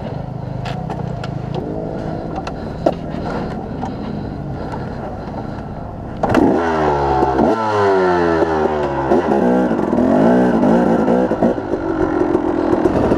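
KTM 250 two-stroke dirt bike engine running steadily at low revs with a few knocks and clicks. About six seconds in it turns suddenly louder and revs up and drops back over and over as the bike rides off.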